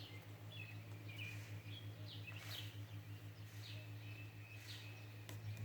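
Faint bird chirping: a scattered series of short, high chirps over a steady low hum.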